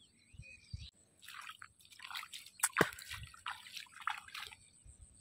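Bare feet wading into shallow water: a run of irregular splashes and drips, one sharper splash about two and a half seconds in.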